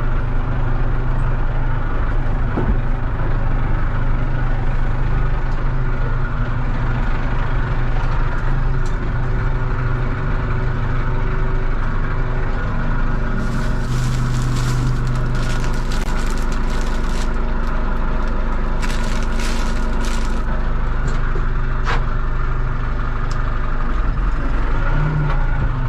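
A tractor engine and drivetrain run steadily under way, with bursts of clattering and scraping about halfway through.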